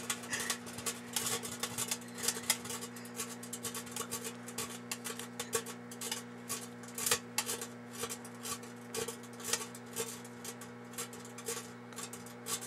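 Microwave oven running with a steady low hum while the foil and metal trim on a troll doll inside arc, giving irregular crackling snaps and pops.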